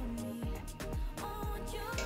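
Background pop music with a steady beat.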